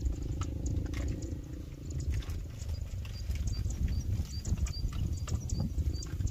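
Outdoor wind rumbling on the microphone, with scattered irregular clicks. A series of short high chirps comes about every half second from about halfway through.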